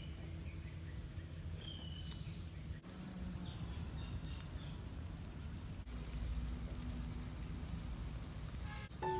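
Pot of beef curry boiling over a wood fire: steady bubbling and a low rumble, with a few faint crackles from the burning wood. A few short bird chirps sound over it.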